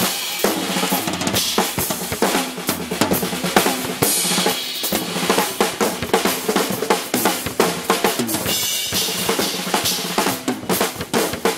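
Acoustic drum kit played solo: a busy run of closely packed snare and bass drum strokes under a steady wash of cymbals.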